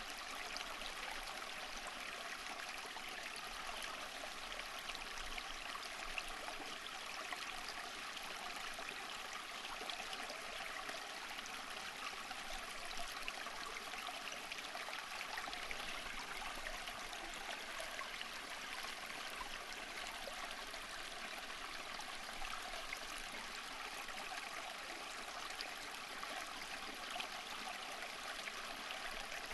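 Water flowing steadily over stones, a continuous babbling stream with small splashes and trickles.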